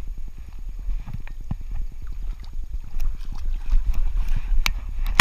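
Handling noise of a camera strapped to a Saarloos wolfdog's back: rapid low knocks and rubbing as the dog moves, with water sloshing as it wades out of shallow water onto the bank.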